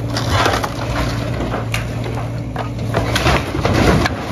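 John Deere excavator's diesel engine running steadily while its bucket and thumb tear into a building's roof, with wood and roofing cracking and crunching several times.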